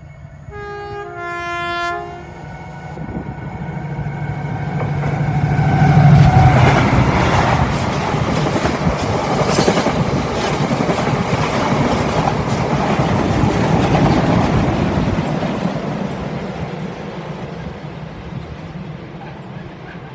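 Class 70 diesel locomotive gives a two-note horn blast, the second note slightly lower. Its GE PowerHaul V16 engine then drones loudly as it passes about six seconds in. A long rake of cement tank wagons follows with rattling and rhythmic wheel clicks over the rail joints, fading as the train moves away.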